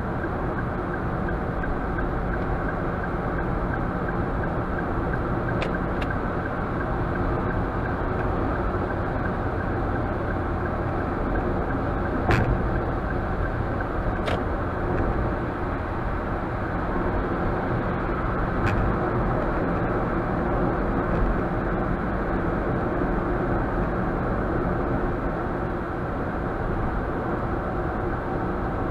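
Car cabin noise while driving: a steady road and engine rumble heard from inside the car, with a few brief sharp clicks or knocks, the loudest about twelve seconds in.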